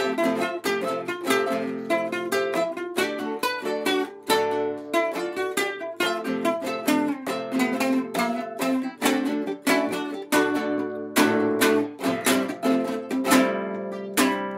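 Instrumental music: ukulele picking quick notes over low held notes underneath, easing into a sustained chord near the end.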